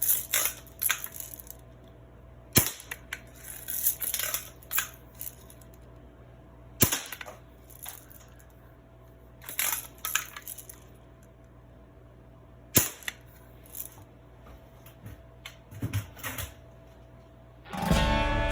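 Daisy 105 Buck lever-action spring-air BB gun being test-fired after repair: three sharp shots several seconds apart, with clicks and clacks of the gun being cocked and handled between them. Music starts near the end.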